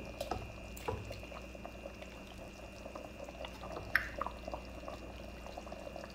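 Wooden ladle dipping into thin gravy in a metal pot and the gravy being poured off it, with small liquid splashes and light knocks of the ladle against the pot; a sharper knock about 4 s in.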